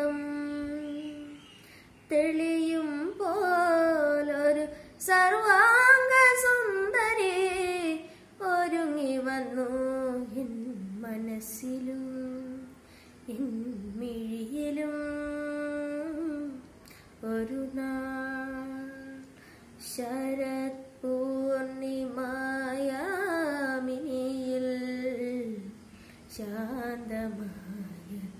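A boy singing solo and unaccompanied, phrases of sliding and long held notes with short breaths between them.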